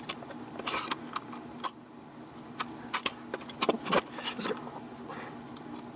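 Irregular small clicks, taps and clinks of tools and small parts being handled on a workbench, over a steady low electrical hum.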